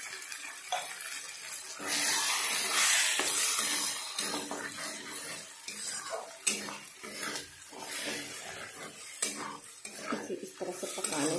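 Metal spatula scraping and clinking against a kadhai while scrambling eggs into cooked Malabar spinach (pui saag), with sizzling from the hot pan that swells for a couple of seconds about two seconds in.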